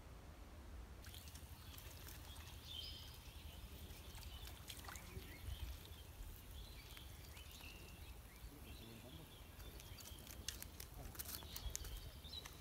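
Quiet outdoor ambience by a pond: a steady low wind rumble with a few faint bird chirps and scattered small clicks and rustles, more of them in the second half as the line and hook are handled.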